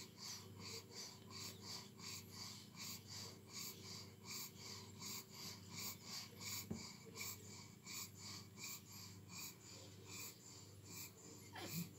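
Wheezy, snuffling breathing from a pug mother and her nursing ten-day-old puppies, going in a steady rhythm of about two to three breaths a second over a low steady hum. A short rising squeak comes near the end.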